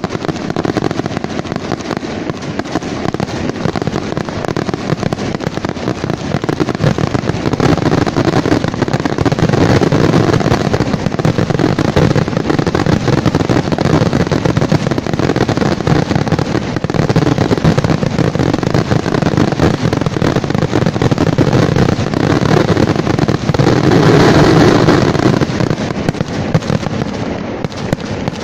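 Fireworks display of aerial shells bursting in a rapid, continuous barrage of bangs. It builds louder about a third of the way in, is loudest a little before the end, then dies down over the last couple of seconds.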